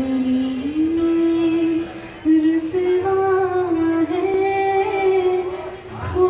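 A woman singing a slow Hindi ballad live into a microphone, in long held notes, with a short break about two seconds in, accompanied by an acoustic guitar.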